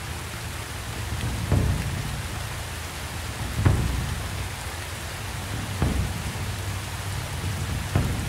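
Steady rain falling, with four deep low booms about two seconds apart.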